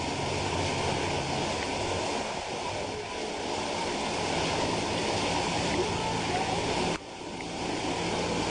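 Vehicle engine running low beneath a steady loud rushing noise. The sound drops out abruptly about seven seconds in and builds back up.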